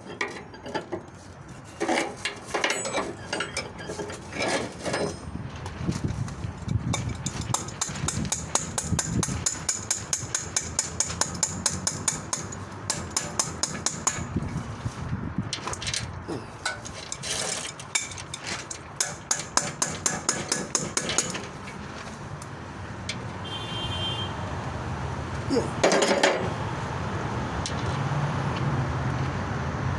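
Hand tools working at a stubborn part on a motorcycle: rapid, regular metallic clicking and tapping for a long stretch, then a single loud knock. A low steady hum builds near the end.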